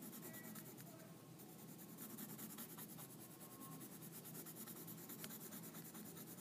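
Green colored pencil scratching faintly on paper in short repeated strokes, all one way, as green is layered over blue to blend the two.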